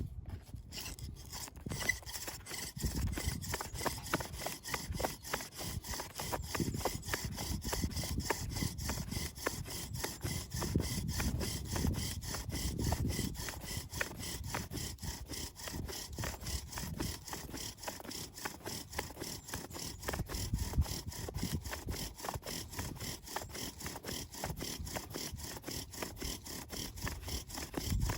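Dry wood being sawn by hand with quick, even back-and-forth strokes, several a second and without pause.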